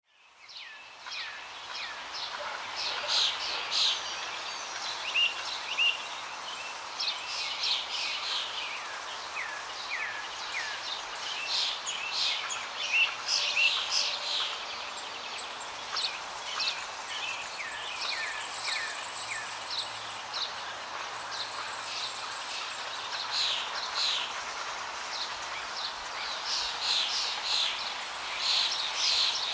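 Several small birds chirping and singing in quick short calls over a steady outdoor hiss, fading in over the first second or two.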